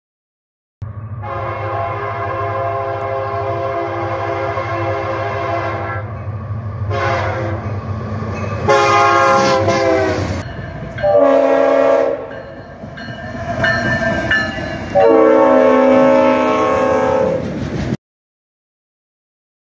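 Diesel freight locomotive horns sounding a series of chord blasts: a long blast of about five seconds, then several shorter ones and a final long one. The chords shift in pitch from blast to blast. A low locomotive engine rumble runs under the first half, and the sound cuts off abruptly near the end.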